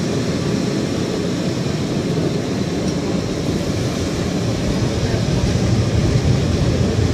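Tram running along its rails, heard from inside the car: a steady low running noise of wheels and motor that grows a little louder near the end.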